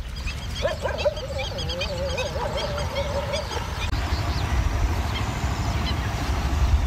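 Small birds chirping over a steady low rumble, with one long wavering, goose-like call lasting about three seconds that starts about half a second in.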